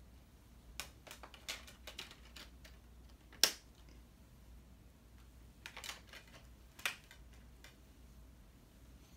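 Discs being snapped back onto the plastic hubs of a Blu-ray SteelBook case: a series of small plastic clicks and handling noises, with two sharper snaps, one about a third of the way in and one about two-thirds in.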